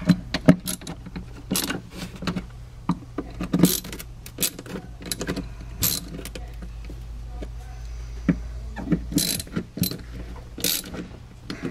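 Scattered clicks and rattles of a 5 mm swivel-head Allen tool turning the plastic engine cover's fasteners about a quarter turn to lock them down, over a steady low hum.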